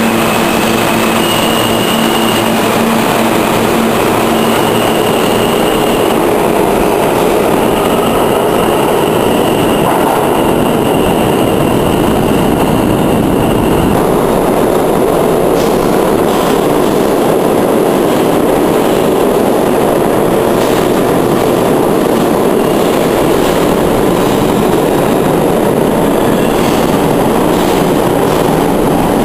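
New York City subway trains in a station: an R160B pulls out with a high whine that steps in pitch, and then an R46 runs in with its wheels clacking over the rail joints. The rumble of the trains is loud and steady throughout.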